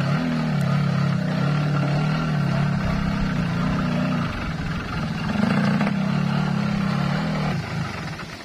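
Yamaha two-stroke motorcycle engine running under throttle, its pitch wavering up and down. It rises around the middle, then dies away near the end.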